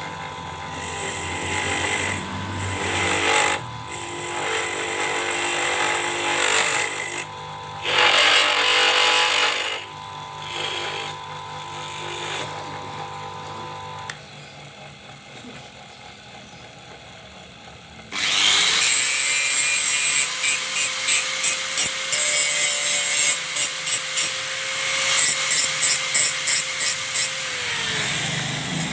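Small motor-driven lathe turning PVC pipe, a cutting tool scraping the spinning plastic in bursts over the motor's hum. It quietens about halfway through, then the motor spins up again with a rising whine and a run of quick, loud scraping strokes before it winds down near the end.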